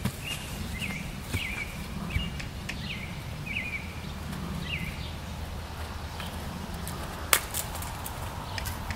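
A small bird chirping a short, repeated note about every half second for the first five seconds or so, over a steady low outdoor rumble, with one sharp click about seven seconds in.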